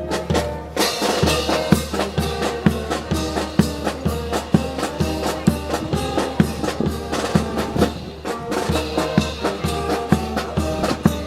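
Brass band playing live: held horn notes over drums keeping a steady, even beat.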